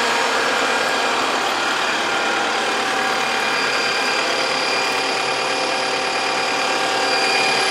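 Diesel engine of an AgXeed AgBot T2 autonomous tracked tractor running steadily at an even speed, with a faint high whine that grows a little more noticeable about halfway through.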